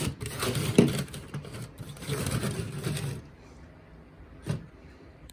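Plastic smoke alarms being handled and shuffled: rubbing and rattling with a sharp knock about a second in, then a single knock after a quieter stretch. A steady mechanical hum under the handling stops about three seconds in.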